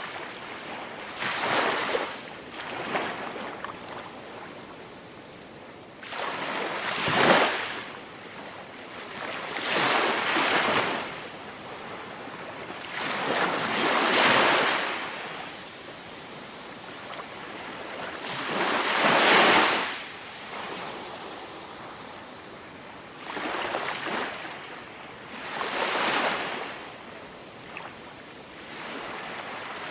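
Waves breaking on a beach one after another, each a rushing swell of surf that rises and falls away over a second or two, every few seconds. The strongest breaks come about seven and nineteen seconds in.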